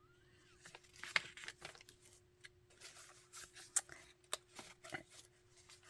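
Pages of a handmade junk journal being handled and turned: faint, scattered paper rustles and light taps.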